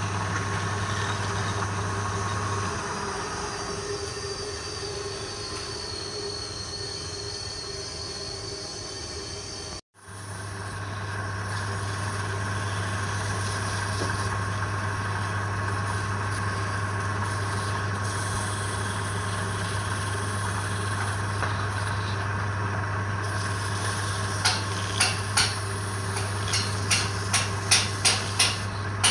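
Woodturning lathe running with a steady motor hum; a faint wavering high tone rides on it for the first several seconds. The sound breaks off abruptly about a third of the way in and resumes. Near the end comes a quick series of sharp taps, about two or three a second.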